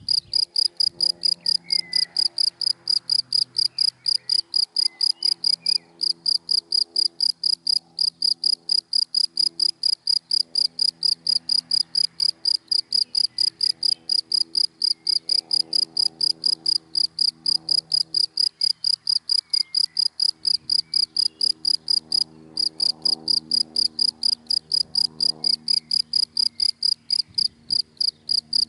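A cricket in dry grass chirping steadily in even pulses, about four a second, with a brief break about 22 seconds in.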